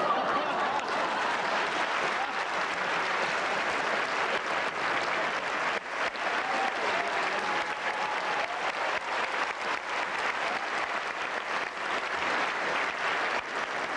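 Theatre audience applauding, a dense, steady clapping.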